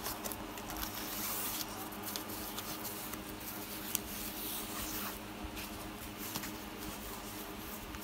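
Soft rustling and scuffing of a thin foam packaging sleeve being opened by hand and a phone slid out of it, with a small click about four seconds in.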